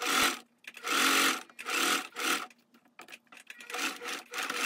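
Domestic sewing machine stitching through linen in short runs of about half a second, stopping and starting three times, then several shorter, quieter bursts in the second half. This is the second pass of a French seam being sewn along a pocket edge.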